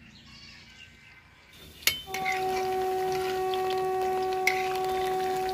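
Fritter batter frying in hot oil in an iron kadai, the sizzle starting about a second and a half in. From about two seconds a loud, steady horn-like tone holds at one pitch for about four seconds over the sizzle.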